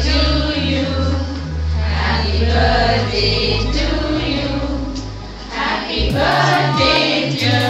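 Background music: a song with singing voices over a steady, stepping bass line.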